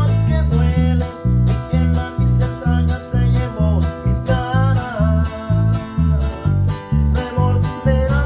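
Guitar and bass guitar playing a simple song together, the bass marking a steady beat of about two notes a second under the guitar's chords.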